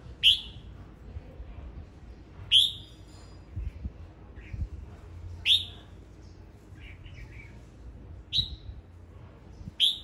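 Male red-whiskered bulbul calling: five loud, short, sharp notes spaced about every two and a half to three seconds, with a few softer chirps in between.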